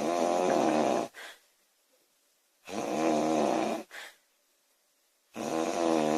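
A woman snoring loudly: three long snores at a steady pace, about one every two and a half to three seconds. Each snore is followed by a brief softer puff of breath.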